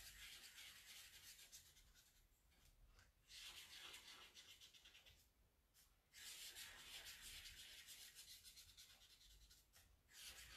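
Faint scratching of a red marker tip on paper as small circles are drawn, in spells of a second or a few seconds with short pauses between.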